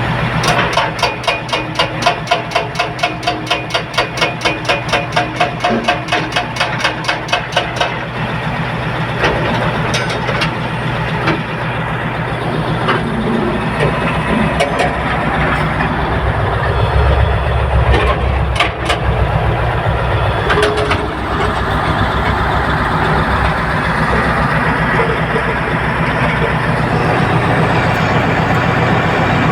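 Diesel engines of heavy construction machinery running steadily. For the first eight seconds or so a fast, regular pulsing sounds over them, about three times a second, and a couple of sharp knocks come near the middle.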